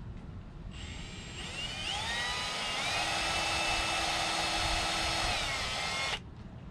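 Electric power tool motor spinning up to a high whine, running steadily for a few seconds, dipping slightly in pitch, then cutting off suddenly.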